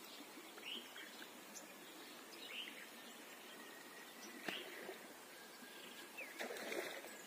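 Faint outdoor ambience with short bird chirps every couple of seconds over a steady hiss, and a brief rustling burst near the end.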